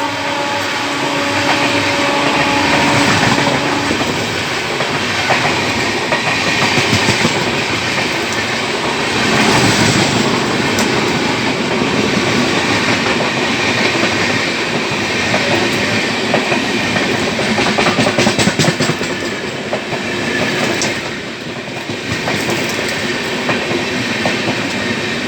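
Train running on rails: a steady rumble with the clatter of wheels over rail joints. A horn's last notes fade out in the first few seconds.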